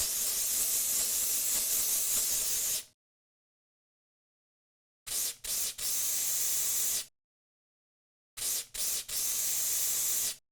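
Aerosol cockroach insecticide can with a narrow straw nozzle spraying. A long hiss stops about three seconds in. Later it sounds twice more as a pair of short puffs followed by a spray of a second or so.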